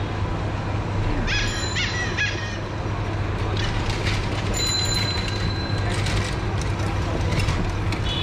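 Busy street ambience: a steady low hum of road traffic, with a few short high-pitched tones about a second in and a steady high tone held for about a second near the middle.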